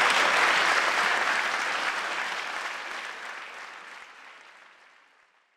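Audience applauding, fading steadily away to silence near the end.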